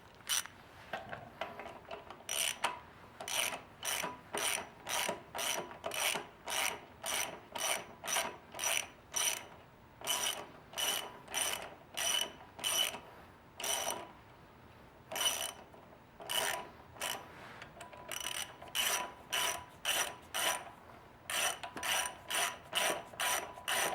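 Hand ratchet wrench clicking in short back-and-forth strokes, about one to two a second with a few brief pauses, as it tightens a motorcycle's brake caliper mounting bolts.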